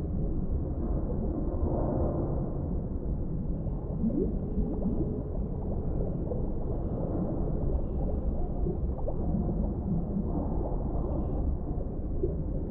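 Underwater ambience: a steady low rumble of water, with a few faint bubbling gurgles about four to five seconds in.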